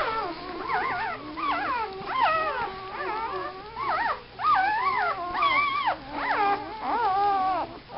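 Young puppies whining and crying, a continuous string of high, wavering whimpers that rise and fall in pitch and often overlap one another.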